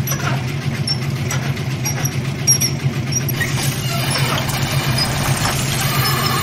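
Front-loading washing machine running with a steady low hum and a rough, fluttering texture, with faint high squeaks now and then.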